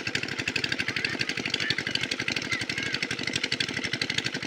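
Small engine running steadily with a fast, even chugging beat.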